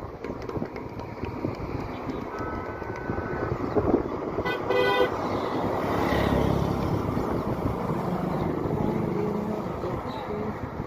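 Road traffic with vehicle horns: a short horn toot about two seconds in and a louder honk around four and a half seconds, then the low rumble of a vehicle passing close.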